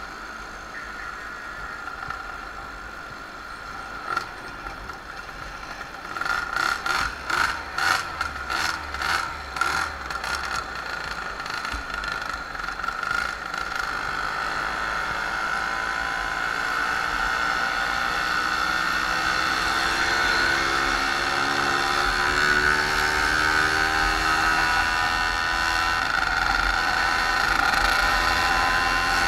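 A small moped engine running under way, with a steady whine. About six seconds in there is a run of loud rhythmic pulses, roughly two a second, for about five seconds, and in the last third the engine note climbs steadily in pitch.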